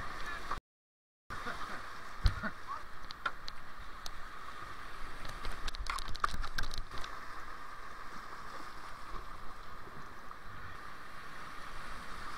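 Whitewater rapids rushing around a kayak as a steady hiss, with scattered sharp splashes and knocks. The sound drops out completely for under a second near the start.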